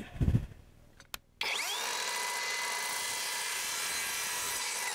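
Cordless Kobalt sliding miter saw switched on with a click, its motor and blade spinning up with a quick rising whine about a second and a half in, then running steadily at speed while it makes the return cut on a short piece of quarter round made from flooring.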